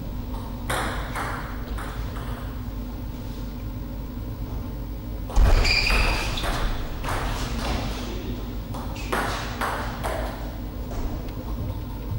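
Table tennis ball clicking off rackets and the table during a rally. One loud, sharp hit about halfway through rings briefly, and a few quicker clicks follow later on.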